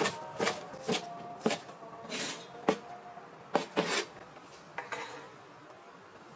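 Kitchen knife chopping spring onions on a bamboo cutting board, about two chops a second. Midway, the blade scrapes and knocks against the board as the chopped pieces are scooped up, followed by a few lighter knocks as they go into a stainless steel bowl.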